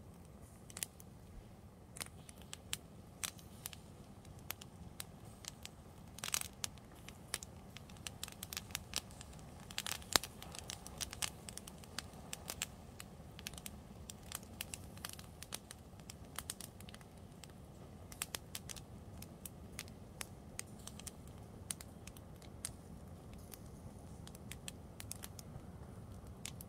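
A wedding dress and the dry grass beneath it burning: irregular crackling with sharp pops, densest and loudest about six and ten seconds in.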